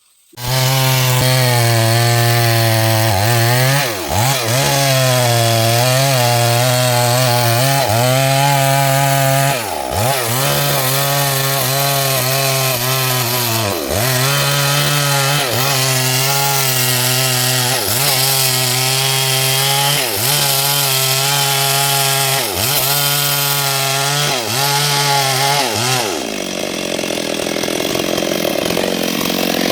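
Stihl MS382 two-stroke chainsaw at full throttle cutting wood. Its engine note starts abruptly and dips in pitch every few seconds, then recovers, as the chain bites into the cut. About 26 s in, the steady engine note gives way to a rougher, noisier sound.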